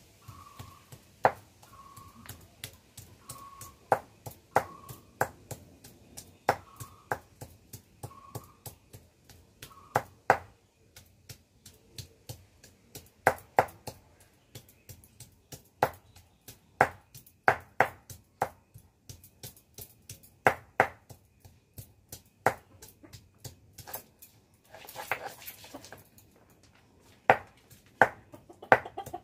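Stone pestle pounding on a flat stone grinding slab (sil-batta), crushing food with irregular sharp stone-on-stone knocks. A bird chirps a short note about once a second through the first ten seconds.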